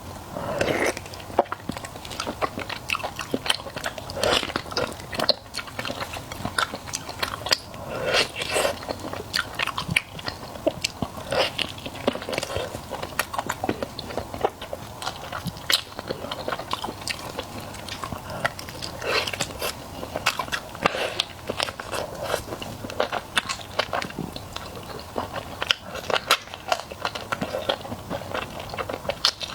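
Close-miked eating: repeated bites, chewing and crunching of food in the mouth, an irregular run of sharp crackly clicks.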